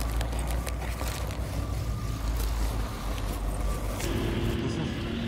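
An engine running steadily, a low rumble. About four seconds in, a steadier droning hum at a fixed pitch joins in.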